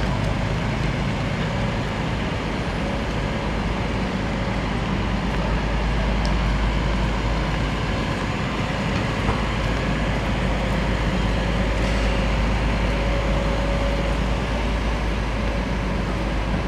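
Steady city traffic noise: a constant low rumble with an even hiss over it, with no distinct events standing out.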